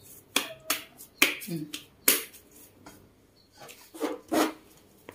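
Plastic cling film being handled and pulled from its roll: a run of sharp crinkles and snaps, clustered in the first two seconds, with another snap about four seconds in.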